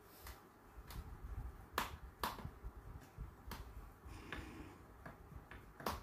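Irregular sharp clicks and light taps from a soldering iron and small metal parts handled on a work table, about nine in all, the loudest about two seconds in.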